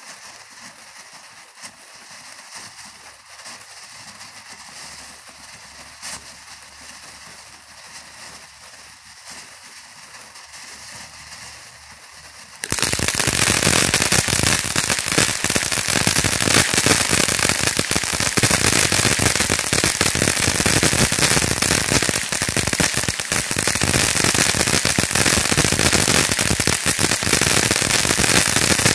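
Phantom Fireworks Firecracker Fountain, a ground fountain, spraying with a steady hiss and light crackle. A little under halfway through it suddenly breaks into a loud crackling barrage of rapid firecracker pops that keeps going.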